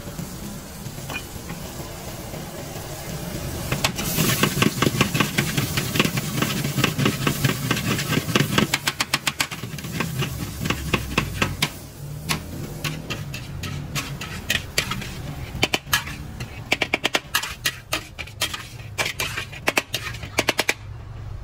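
A long metal spatula scraping and striking a large metal wok in quick runs of clanks while stir-frying food, over a steady low rumble.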